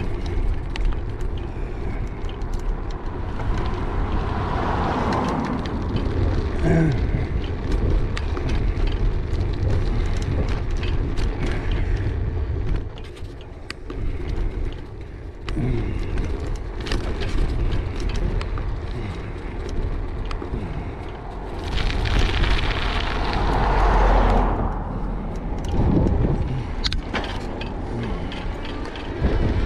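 Riding noise from a moving e-bike: wind buffeting the GoPro microphone over a low tyre rumble, with frequent small rattles and clicks. A louder rush swells and fades twice, about five seconds in and again past twenty seconds.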